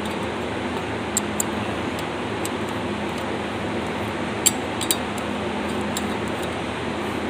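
A few light metallic clinks as hand tools and metal parts are handled while an air compressor is opened up, heard over a steady background hum.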